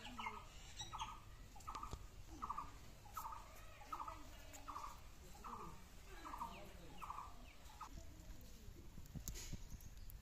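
A bird repeating one short call over and over, about three times a second, stopping about eight seconds in. A few faint clicks of small fish being cut on a bonti blade.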